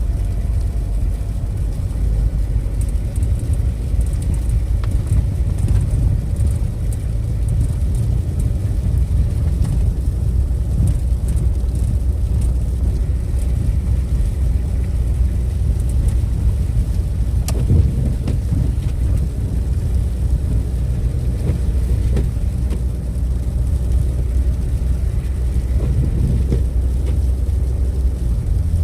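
A motor vehicle driving, giving a steady low rumble of engine and road noise. There is one brief sharp tick about halfway through.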